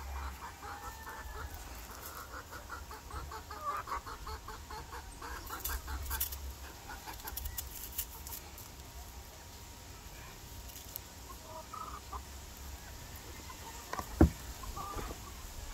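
Chickens clucking, a quick run of short clucks at first and a few single calls later. A single sharp knock about fourteen seconds in.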